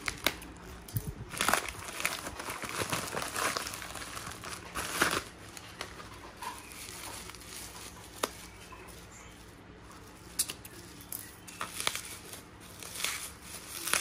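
Plastic bubble wrap and a padded mailer crinkling and rustling in the hands as a Zippo lighter is unwrapped, in irregular bursts with a couple of sharp clicks.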